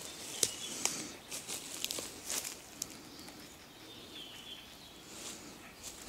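A few sharp snaps and rustles from the forest floor, steps on dry twigs and litter, mostly in the first three seconds. Faint high bird calls come in near the start and again around four seconds in.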